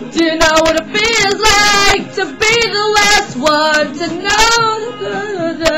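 High-pitched singing voice in short phrases, its pitch wavering, over a steady low accompaniment.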